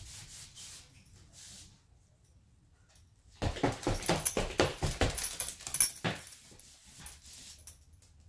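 Small Yorkie-Pomeranian dog playing excitedly, with a quick flurry of short, loud sounds starting about three and a half seconds in and lasting almost three seconds.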